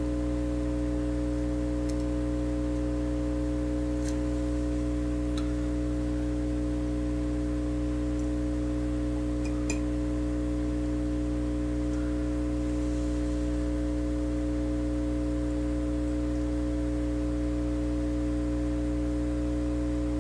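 A steady electrical hum made of several constant tones, with a few faint light clicks spread through it.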